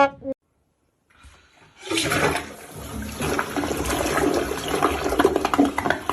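Rushing water starting about two seconds in and running steadily, like a flushing toilet.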